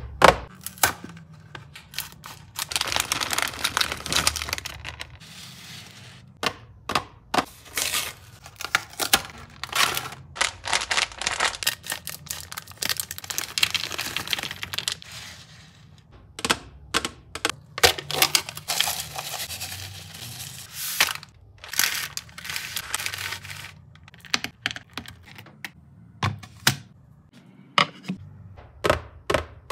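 Sweets packaging crinkling and tearing open, and sweets pouring and clattering into a divided bamboo platter, with many sharp clicks and taps in between. The rustling comes in several long spells, the clicks scattered throughout.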